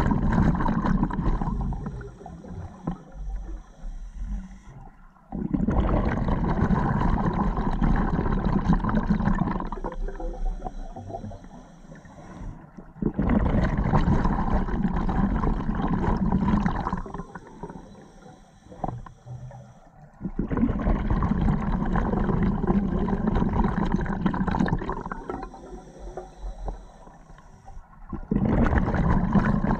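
Scuba diver breathing underwater through an open-circuit regulator, about four breaths in all. Each exhale is a loud rush of bubbles lasting about four seconds. Between them come quieter inhales with a thin, high hiss from the regulator.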